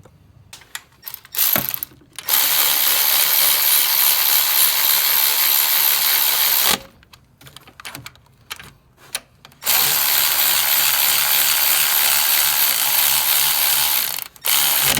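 Power ratchet running the alternator mounting bolts in, in two long runs of about four and a half seconds each, with a few clicks and taps before and between them.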